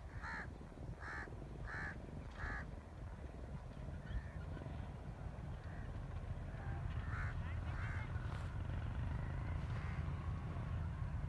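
A crow cawing four times in quick succession, about two-thirds of a second apart, then a few fainter calls later, over a steady low rumble.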